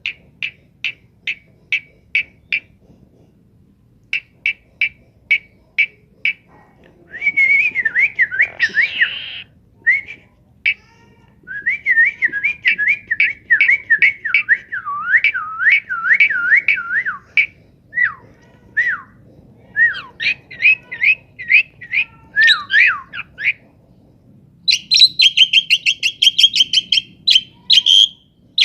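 Pet talking bird whistling: runs of short, evenly spaced high pips, then warbling whistles that slide up and down, and a rapid high chatter near the end.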